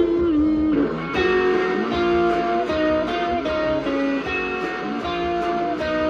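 Guitar music: a melody of held notes stepping up and down over lower accompanying notes, the sound filling out about a second in.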